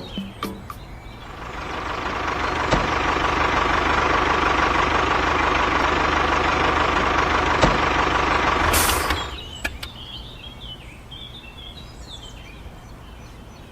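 A small motor running steadily for about eight seconds with a constant whine, then stopping abruptly; a few clicks before it starts and faint high chirps after it stops.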